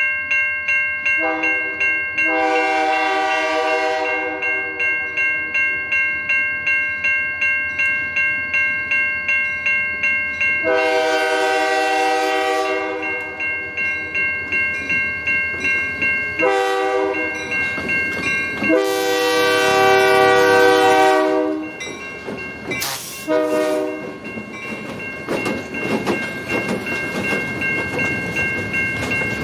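Railroad crossing bell ringing steadily at about two strokes a second while a diesel locomotive's horn sounds several blasts, long, long, short, long and a last short one, the grade-crossing signal. The rumble of the train rises near the end as it draws near.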